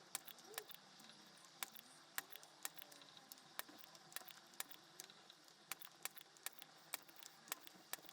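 Near silence with faint, irregular small clicks and ticks, a few a second.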